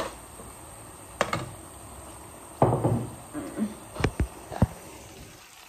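Kitchen utensils and containers being handled: a scattering of sharp knocks and clanks, ending with three quick ones close together about four seconds in.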